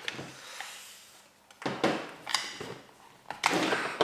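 A few irregular clicks and knocks of a tool against a gel blaster's plastic body, with handling rustles between them, as stuck retaining pins are being forced out.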